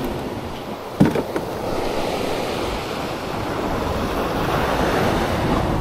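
Sea surf washing onto a beach, with wind on the microphone. A brief knock about a second in is the loudest sound, followed by a smaller one just after.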